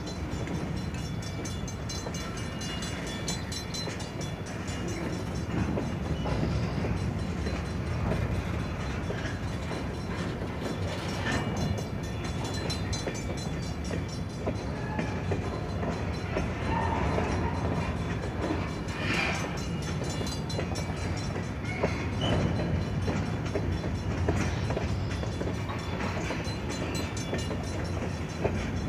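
Freight train of covered hopper cars rolling through a grade crossing: a steady low rumble of steel wheels on the rails, with scattered clacks and a few sharper knocks as the wheels cross the joints and the crossing.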